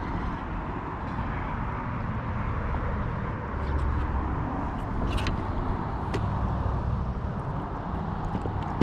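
Wind buffeting the action camera's microphone: a steady low rumble that swells and eases, with a few sharp clicks about five and six seconds in.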